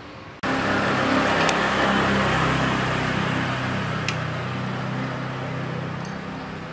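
A machine running steadily with a low hum, starting suddenly just under half a second in and slowly growing fainter.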